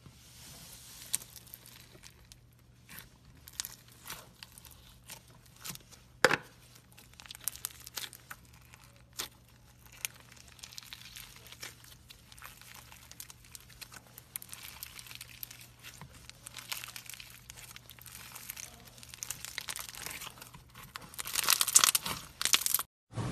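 Hands squeezing and kneading a foam-bead slime, making scattered sticky crackles and pops as the beads and slime are pressed. There is one sharper snap about six seconds in, and the crackling grows denser and louder near the end.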